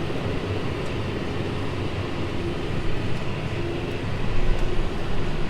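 John Deere 6250R tractor pulling a Krone Big Pack 890 square baler at work in hay: a steady mechanical running noise with a low hum, getting a little louder in the second half.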